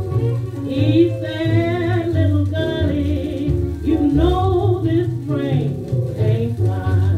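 A 1938 small-band blues recording played from a 78 rpm shellac record: a lead line with a wide vibrato over plucked double bass. It has little treble, as old 78s do.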